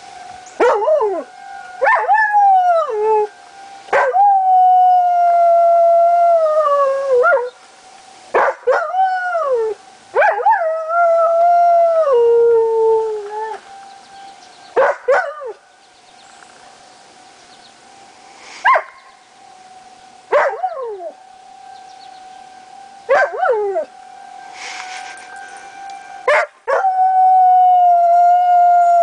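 Dutch shepherd–husky mix dog howling in answer to tornado warning sirens: a series of howls, several long ones that slide down in pitch, with shorter sharp calls between. The siren is a faint steady tone underneath.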